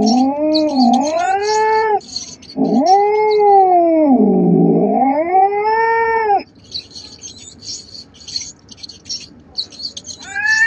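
A domestic cat yowling: two long, drawn-out caterwauls, the second about twice as long as the first, with a dip in pitch in its middle. Faint short high ticking sounds fill the pauses between the calls and the last few seconds.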